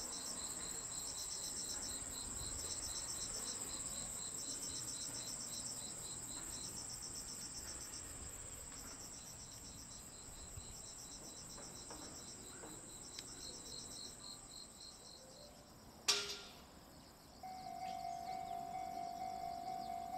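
Insects singing: a steady high buzz with groups of rapid chirps repeating about once a second. About sixteen seconds in there is a single sharp click, and about a second later a steady mid-pitched tone starts.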